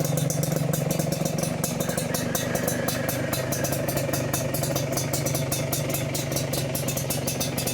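Kawasaki HD3 motorcycle's single-cylinder engine idling steadily through an aftermarket RCM downpipe exhaust. It is a little louder for the first second or so, then settles.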